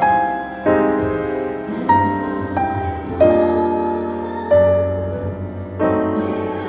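Piano music: a new chord struck about every second and a half, each left to ring and fade.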